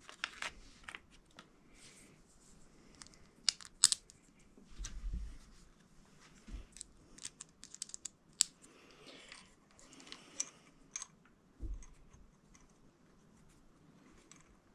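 Hands handling small assembly parts: scattered light clicks and plastic rustles of screws and a small parts bag, with a couple of dull bumps.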